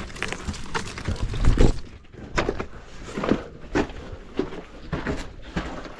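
Irregular footsteps and scuffs on rock, with a heavier thump about a second and a half in.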